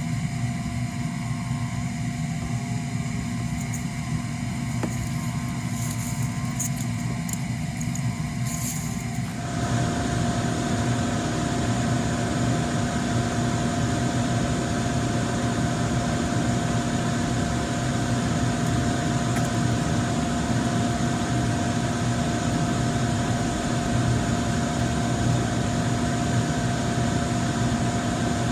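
Electric blower motor running with a steady hum. About nine seconds in, a louder steady hiss joins it and continues.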